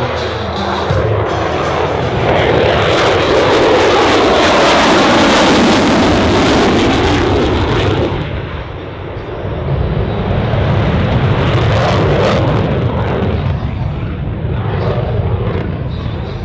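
F-22 Raptor jet, its two Pratt & Whitney F119 afterburning turbofans, going by in a loud roar. The roar swells, falls in pitch as the jet passes, and drops sharply about eight seconds in. A lower rumble follows and fades.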